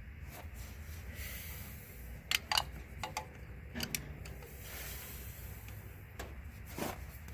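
A few short clicks and scrapes of hands working a new rubber fuel hose and its clamp onto a tractor's fuel line, over a low steady rumble.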